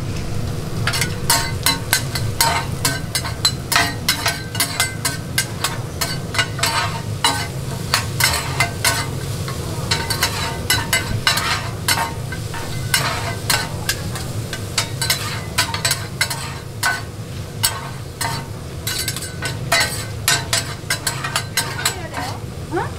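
Metal scrapers clacking and scraping on a flat steel griddle, several quick strikes a second, as pork intestines (gopchang) and cabbage are tossed and stir-fried, sizzling, over a steady low hum.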